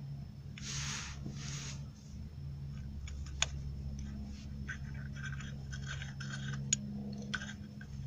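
Hand ratchet clicking in quick runs as the 10 mm bolts of the balancer chain tensioner are run in, with a couple of sharper metal clicks. Two short hissing sounds come about a second in, over a steady low hum.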